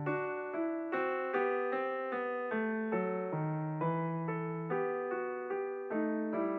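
Background piano music: a continuous line of struck notes, about two or three a second, each fading before the next.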